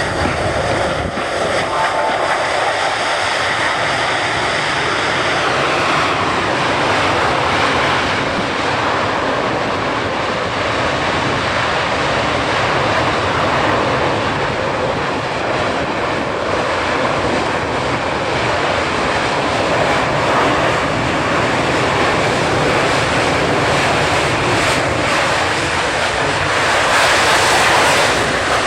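Boeing C-17 Globemaster III's four Pratt & Whitney F117 turbofan engines at high power as the transport flies its display, a loud steady rushing jet noise. A high whine in it drops in pitch about five seconds in.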